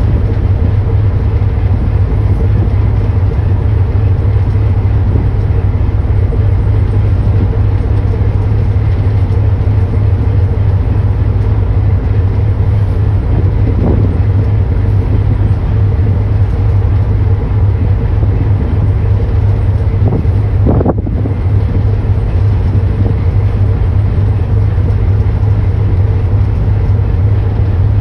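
Steady, loud low engine drone of a ship under way, with an even rush of wind and water.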